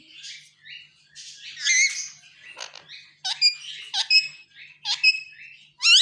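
Rose-ringed parakeet chattering softly in high notes, then giving a series of sharp, shrill squawks about two a second through the second half.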